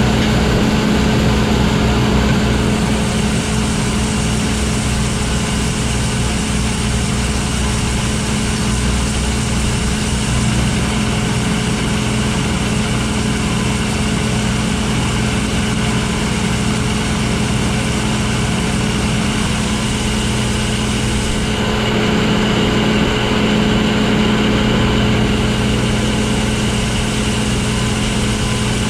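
A farm machine's engine running steadily at a constant speed, with a high hiss that comes and goes.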